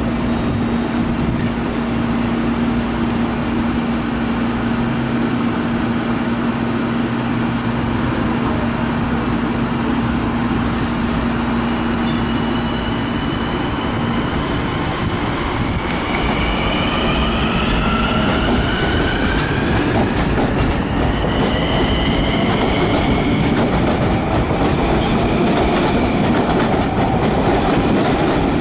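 Long Island Rail Road electric commuter train at a station platform. A steady low hum runs for about the first half. Then rising whines from the train's electric motors come in as it gathers speed, over the rumble and clatter of the cars, growing a little louder toward the end.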